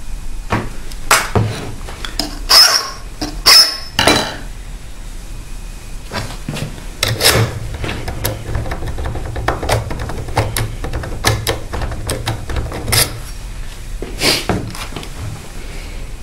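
Metal clicks and scrapes from a blank impression key being worked in an Asec euro-profile lock cylinder: a few sharp, loud scrapes and clicks in the first few seconds, then a long run of lighter clicks and ticks as the key is turned and wiggled so the pins mark it.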